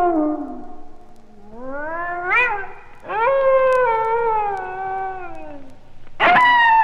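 Cats yowling as a recorded sound effect: a call that slides upward to a sharp peak, then a long drawn-out wail that wavers and sinks, then a louder yowl that breaks in suddenly near the end.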